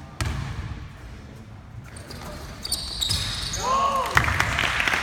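A basketball bouncing on a gym floor with a loud thump a moment in and more thumps later, sneakers squeaking, and a short shout before crowd noise rises near the end.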